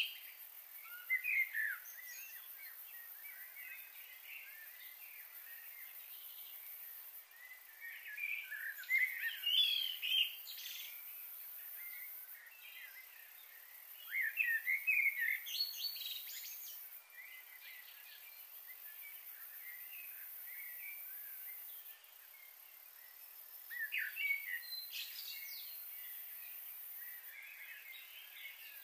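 Birds chirping and singing in short bouts every several seconds, over a faint steady hiss.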